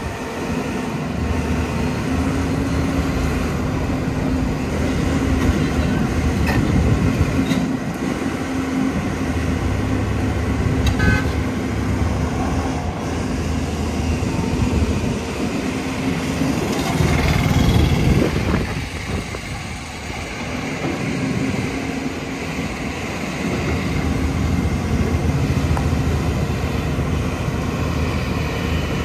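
Construction-machine diesel engines running steadily, with a brief swell of louder engine noise a little past the middle.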